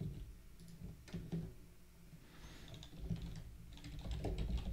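Computer keyboard typing: faint, scattered key clicks, a few about a second in and a quicker run near the end.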